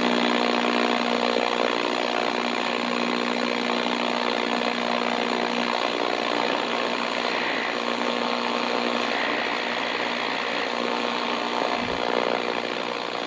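Static from a GE clock radio's AM band, tuned between stations: a steady hiss with a low electrical buzz that fades about halfway through, and no station coming in.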